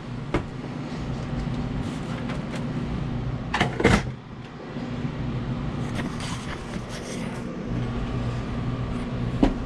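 Hand work on the metal parts of an ice machine: a click just after the start, then a short, loud clatter of metal parts knocked against each other about four seconds in, over a steady low hum.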